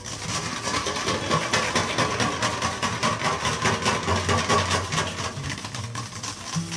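Wire whisk beating fast against a stainless steel bowl, whisking olive oil into a balsamic vinaigrette to emulsify it: a rapid, steady run of metallic clicks and scrapes.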